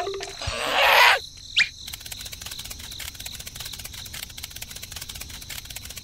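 Insects chirping in a fast, even ticking trill over a thin high whine, after a short hissing rush and a quick rising whistle near the start.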